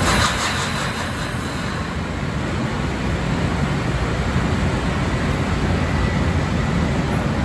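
Long Island Rail Road electric commuter train starting to pull out of an underground platform: a steady low rumble, with a burst of hiss in about the first second and a half.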